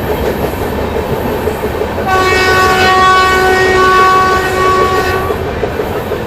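Indian Railways express train running with wheel clatter on the rails. About two seconds in, a WAP-7 electric locomotive's horn sounds one held blast of about three seconds, then stops.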